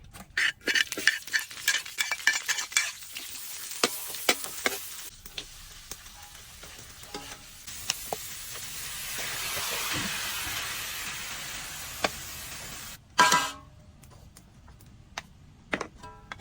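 Cow lung sizzling as it fries in a pan, stirred with a utensil that clinks and scrapes against the pan. A loud clank near the end.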